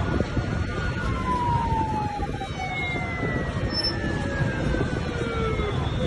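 Steady noise of wind and surf, with several thin tones that glide slowly down in pitch.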